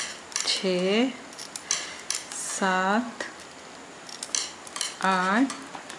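Steel knitting needles clicking and scraping against each other as stitches are worked. A short, low, hum-like tone that lifts in pitch at its end recurs about every two seconds.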